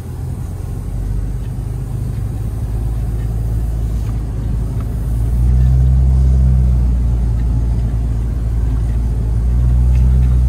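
Pickup truck engine droning low and steady, heard from inside the cab while driving, swelling louder about halfway through and again near the end.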